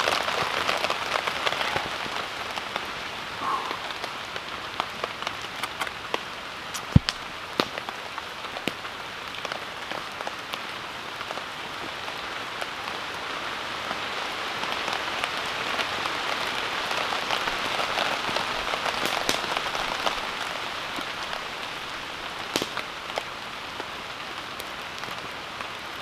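Steady rain falling on a tent's fabric, with individual heavier drops striking here and there. The rain grows louder for a few seconds around the middle, and there is one sharp tap about seven seconds in.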